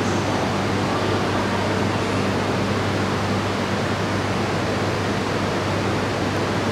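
Steady hum and hiss of stationary E5 series Shinkansen trains at the platform, their onboard air-conditioning and cooling equipment running, with a constant low hum underneath.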